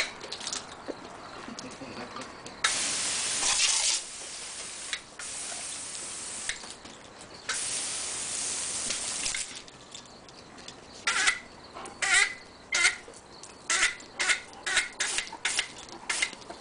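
Garden hose pistol-grip spray nozzle spraying water: a few long hissing bursts, then a quick run of short spurts, about two a second, as the stream is aimed at a Great Dane's mouth.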